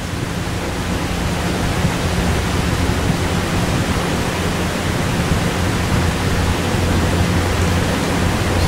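Steady loud hiss like rushing air, with a low electrical hum under it, slowly growing louder; no tool sound stands out.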